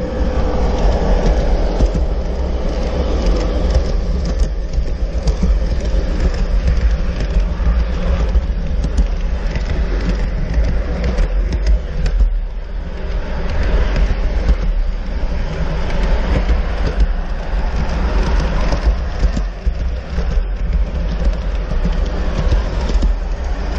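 G-scale model train running on its track, heard from a car of the train itself: a steady rolling rumble of the wheels on the rails, with frequent clicks.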